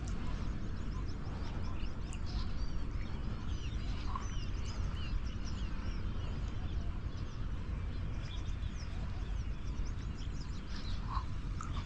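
Birds chirping: many short, high calls, thickest through the first half and thinning later, over a steady low rumble.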